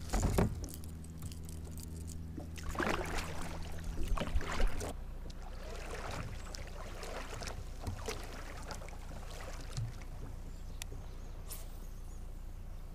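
Water splashing and lapping against a kayak hull, with a louder stretch of splashing about three to five seconds in, then lighter lapping and a few small clicks.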